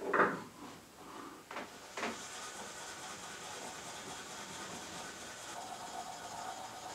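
A short knock just after the start and a couple of small clicks, then steady scratchy rubbing: an abrasive sheet scrubbed quickly back and forth over the blade of a Helle Nying knife to clean and sand it.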